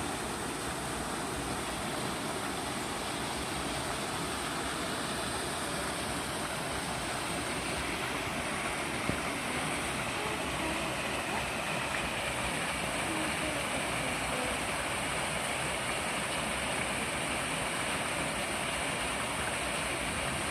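Steady rush of flowing water, an even unbroken hiss with no distinct splashes.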